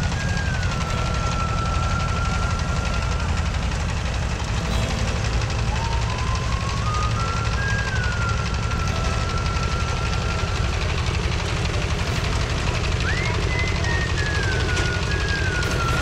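Engine-driven rice threshing machine running steadily with a deep rumble. Over it, a thin high melody line slides up, steps down and holds long notes, in three phrases.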